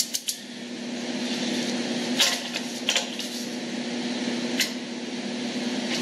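A few sharp metallic clicks and clinks of a socket and torque wrench on a spindle nut, torquing the nut to 24 foot-pounds, over a steady background hum.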